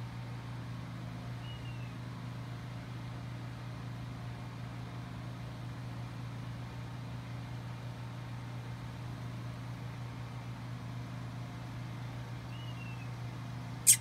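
Steady low hum of an idling vehicle engine, with two faint short chirps, one early and one near the end, and a sharp click at the very end.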